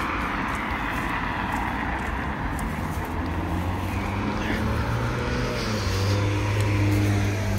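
Road traffic on a busy street: a steady hiss of cars and tyres passing, with a low engine drone that builds from about three seconds in and is loudest near the end.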